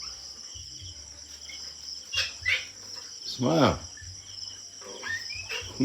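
Crickets chirring in a steady, continuous high-pitched drone, with a few light clicks.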